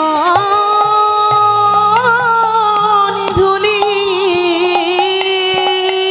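A woman singing a Bengali kirtan, holding one long, wavering note with a low steady accompaniment and light drum strokes beneath.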